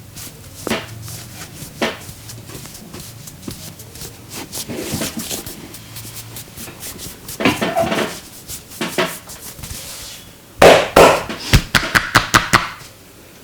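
Hands-on Indian head massage: a few scattered clicks and scuffs, then about ten seconds in a fast run of about a dozen loud, sharp percussive hand strikes over some two seconds.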